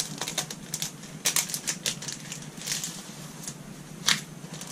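Plastic cellophane packaging of a paper ephemera pack crinkling and crackling as it is handled and opened, in short irregular crackles, with the loudest about four seconds in.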